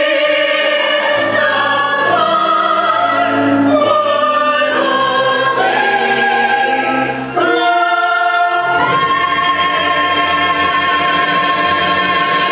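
Chorus of singers from a stage musical, with accompaniment, holding full-voiced chords that change every second or two. About three-quarters of the way in, they settle on one long sustained chord.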